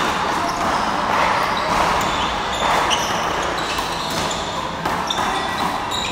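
Handball rally in a reverberant indoor court: a rubber handball slapping against the wall and floor, and sneakers squeaking sharply and often on the court surface as the players lunge.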